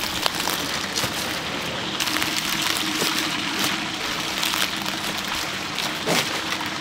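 Chicken deep-frying in hot oil in a large cauldron: a steady sizzle full of small crackles and pops, with a faint low hum underneath.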